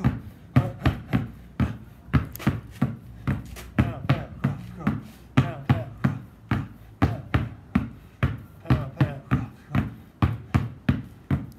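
Two basketballs bounced hard on concrete in a steady rhythm of about three bounces a second, in a two-ball 'pound, pound, cross, cross' crossover dribbling drill.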